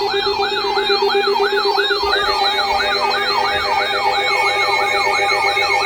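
Electronic yelp siren sounding as an emergency alert, its pitch sweeping up about three times a second over steady alarm tones.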